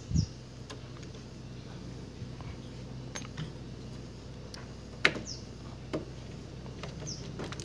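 A low thump and a few sharp metal clinks, with one louder clink about five seconds in, as hands work a worn front drive sprocket of a motorcycle loose from its shaft and chain. A steady low hum sits under it.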